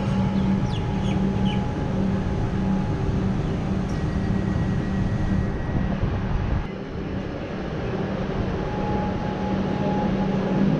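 Metro Trains Melbourne Comeng electric multiple unit pulling slowly into the platform: a steady electric hum over the rumble of wheels on rail, dropping in level about seven seconds in.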